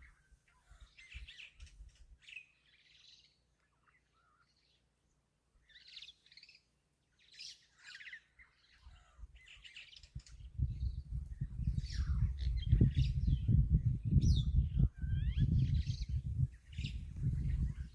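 Birds chirping and calling in short, repeated phrases. About ten seconds in, a loud, uneven low rumble starts and becomes the loudest sound.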